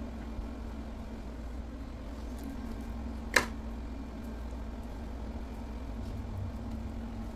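Steady low hum of an electric hot pot simmering a pot of sour soup, with one sharp click about three and a half seconds in.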